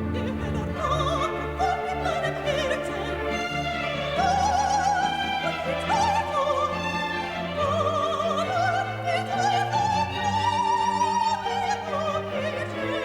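Operatic soprano singing with a wide vibrato over orchestral accompaniment. The voice climbs to its highest sustained notes about two-thirds of the way through.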